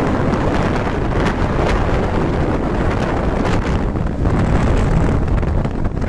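Heavy wind buffeting the microphone of a phone held out from a Vespa scooter riding at road speed, with the scooter's running and road noise underneath.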